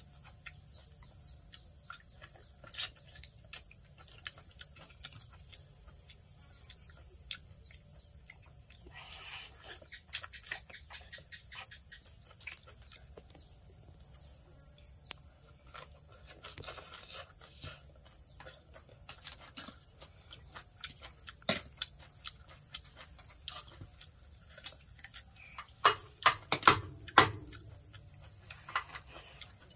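Scattered light clicks and clinks of a metal fork and spoon tossing papaya salad in a bowl, with a few louder knocks near the end.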